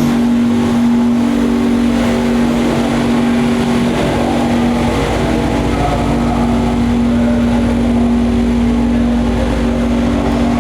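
A car engine running at steady revs with a held, even note.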